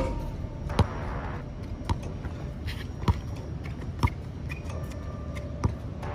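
Basketball bouncing on a concrete court: about five sharp slaps, roughly a second apart, over a steady low background noise.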